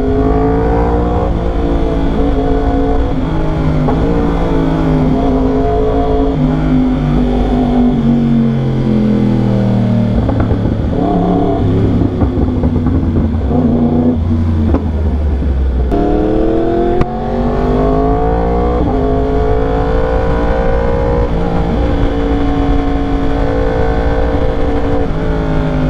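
2021 Yamaha R1's crossplane inline-four engine running through a loud aftermarket exhaust while riding. The revs sink for several seconds from about eight seconds in, then climb sharply about sixteen seconds in and ease off again.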